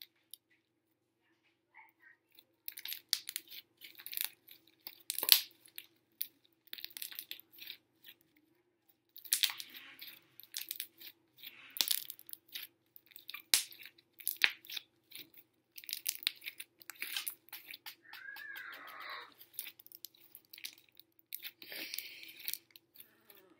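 Slime mixed from several slimes being squeezed, stretched and folded by hand, giving irregular runs of wet clicks, pops and crackles that start about two or three seconds in.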